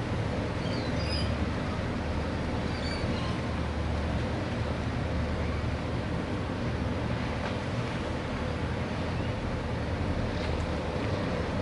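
Steady low engine rumble of a harbour ferry under way, heard from a distance. A few short, high rainbow lorikeet chirps come about a second in and again around three seconds in.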